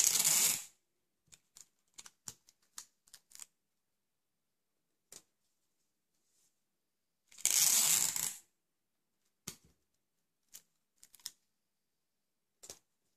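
Clear adhesive tape (Tesafilm) pulled off the roll twice, each pull lasting about a second, once at the start and once about halfway through. Light clicks and rustles from the paper strips being handled and the tape pressed down come in between.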